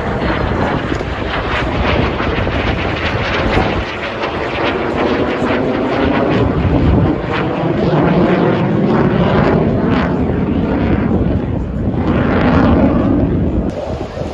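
A fixed-wing aircraft flying past. Its engine noise builds through the middle with slowly shifting pitch, then drops off near the end.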